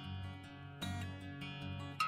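Background music: acoustic guitar playing plucked notes, a new note struck about every second.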